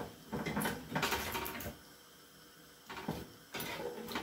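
A metal fork and spatula scraping and clattering against an oven's wire rack while pieces of roasting fish are turned. The noise comes in two bouts of about a second and a half each, with a quieter gap between them.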